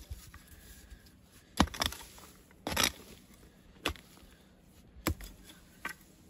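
A long-handled hoe chopping into packed soil and roots, about six strikes roughly a second apart, with a longer scrape of the blade through the dirt about three seconds in.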